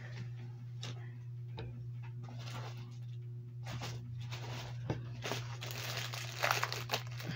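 Plastic wrap crinkling and rustling as skeins of yarn are handled and pulled from the shipping box, in scattered soft bits that thicken into a denser rustle near the end. A steady low hum runs underneath.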